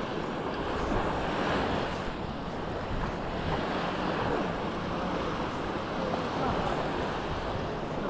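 Sea waves breaking and washing up on the beach, the surf swelling and easing every few seconds, with wind rumbling on the microphone.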